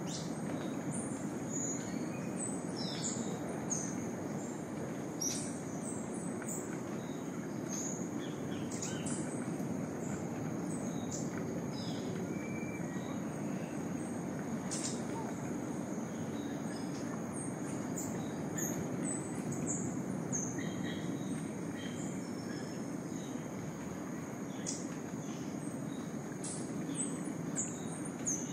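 Rainforest dawn chorus: many birds giving short high chirps and calls, over a steady high-pitched insect whine and a constant low rushing background.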